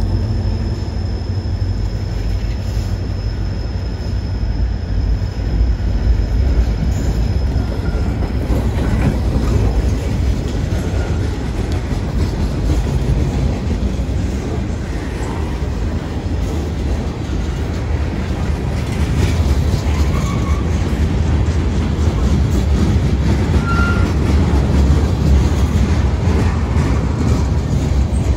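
Freight cars (covered hoppers, boxcars and tank cars) rolling steadily past close by, a heavy low rumble with wheels clattering over the rail joints. A few brief faint squeals come from the wheels in the second half.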